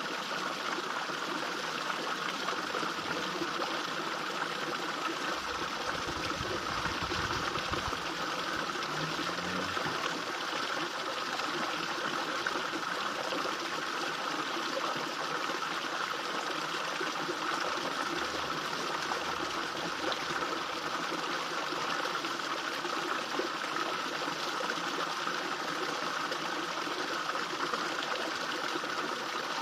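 Small fish pond waterfall: water spilling steadily into the pond with a continuous splashing trickle.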